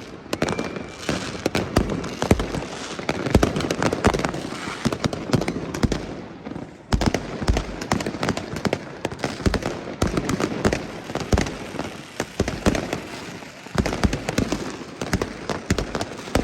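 Fireworks going off in a dense barrage of bangs and crackles, with a brief lull about six and a half seconds in.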